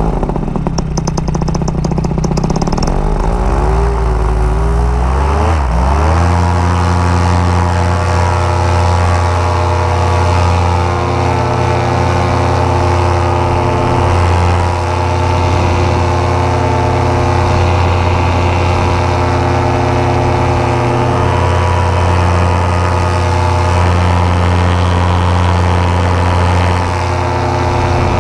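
Paramotor engine and propeller on the pilot's back running close to the microphone: it runs low for a few seconds, revs up smoothly to full power about five seconds in, then holds a steady high-power drone for the launch and climb.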